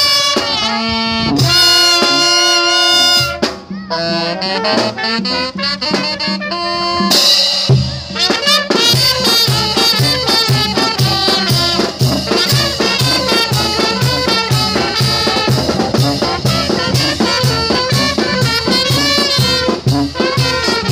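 Mexican brass band playing outdoors: saxophones and trumpets hold chords at first, then about eight seconds in a bass drum, cymbal and sousaphone come in with a steady, quick dance beat under the horns.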